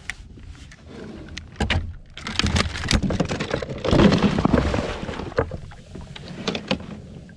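Knocks, clatters and splashy water noise on a fishing kayak, swelling to their loudest about four seconds in.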